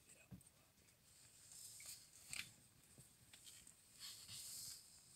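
Near silence, with faint patches of hiss and a few soft clicks.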